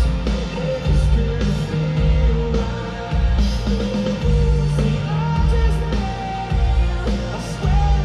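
Rock band playing live in an arena, heard from out in the audience: a heavy bass pulsing about once a second under guitars, with a singer's voice coming in about halfway through.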